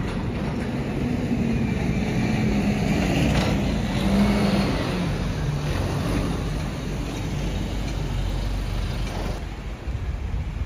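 City street traffic with a motor vehicle's engine passing close by. It grows loudest about three to four seconds in, then the engine note drops as it moves away.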